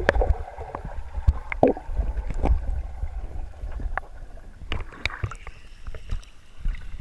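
Swimming-pool water heard underwater, muffled: a steady low rumble with scattered clicks and bubble pops from swimmers moving and breath-holding. The camera surfaces near the end.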